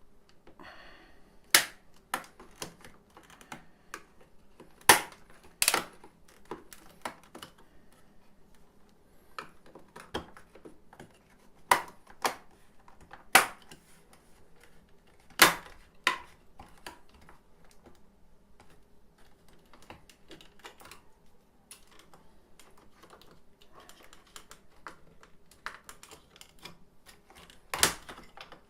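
Sharp plastic clicks and knocks, about ten loud ones at irregular intervals with fainter handling noise between, as a refrigerator's plastic cover near the door hinge is pried open.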